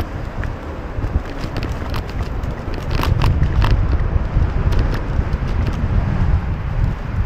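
Urban road traffic with wind rumbling on the microphone, the low rumble growing louder about three seconds in, and scattered light clicks and rattles on top.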